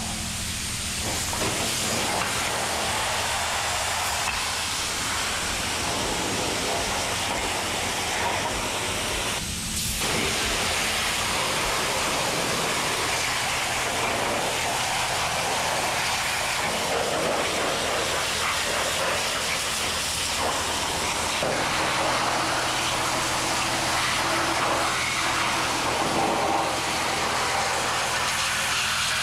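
Pressure washer jet spraying water onto bare aluminium engine cases: a steady hiss of spray over a steady low hum, briefly easing about ten seconds in.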